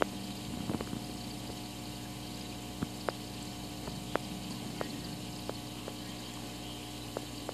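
Aquarium air pump humming steadily while it bubbles air through the water, with sharp single pops from the bubbles at irregular intervals.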